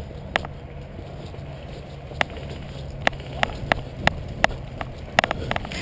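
Airsoft guns firing single shots, sharp clicks spaced unevenly at first, then about three a second and closer together near the end as the shooting picks up.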